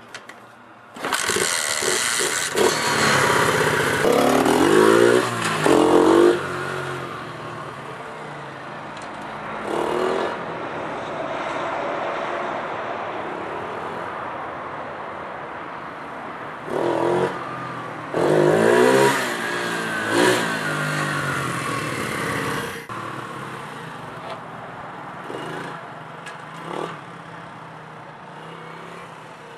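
Minibike's small Honda-clone four-stroke engine revving as the bike pulls away and rides up and down the driveway, the pitch rising with each acceleration. It is loudest twice as the bike passes close, and fainter in between and toward the end. It runs cleanly with its carburetor freshly cleaned.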